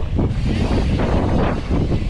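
Wind rushing over the microphone of a camera worn by a rider on a moving bicycle, a steady low rumbling buffet.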